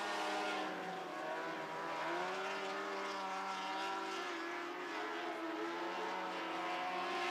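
Lightning sprint cars' motorcycle engines running at speed around the dirt oval, their engine notes wavering gently up and down as they go through the turns.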